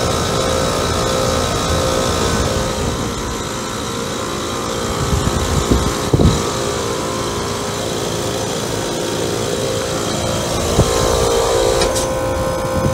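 Outdoor central air-conditioner condensing unit running, likely a 2008 Trane XB13: a steady hum from the compressor and condenser fan, with a few steady tones over an even whir. A brief click comes about twelve seconds in, after which the hum changes character.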